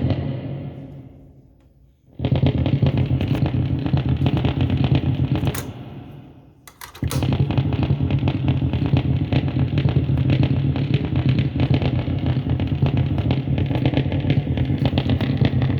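Loud, heavily distorted buzzing drone from a Line 6 HX Stomp guitar effects pedal, the odd noise the unit is making. It dies away over about two seconds, cuts back in abruptly, fades again, and cuts in abruptly once more near the middle, then holds steady.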